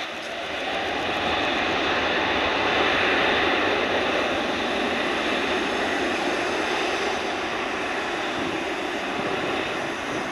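Jet airliner's engines running as the aircraft rolls along the runway: a steady rushing engine noise that swells about a second in.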